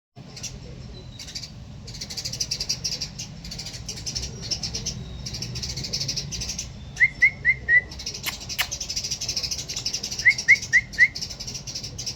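A flock of small birds chirping busily and without pause. Twice, about seven and ten seconds in, another bird gives a run of four loud, quick notes, and there are two sharp clicks just after eight seconds.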